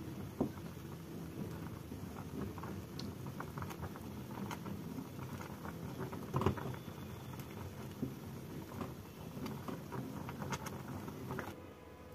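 Wooden spatula stirring thick boiling milk and sago pearls in a metal pan, scraping and knocking against the pan in irregular clicks. The loudest knock comes about six and a half seconds in.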